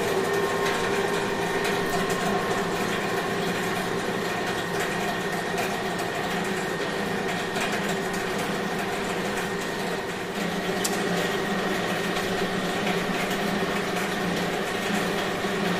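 Machinery on a lettuce-processing line running steadily: an even mechanical hum with a thin, higher steady tone over a hiss, and a few faint clicks.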